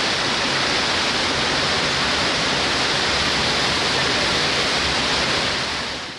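Flash-flood water rushing as a steady, even roar of noise that fades out near the end.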